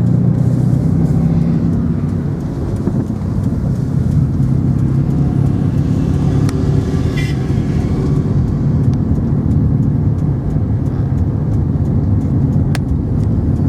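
Engine and road noise of a moving car heard from inside the cabin: a steady low drone, with a single sharp click near the end.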